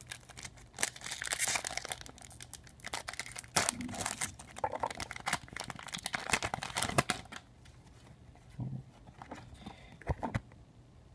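Foil Pokémon booster pack wrapper being torn open by hand, crinkling and crackling for several seconds. After that come a few softer rustles as the cards are drawn out.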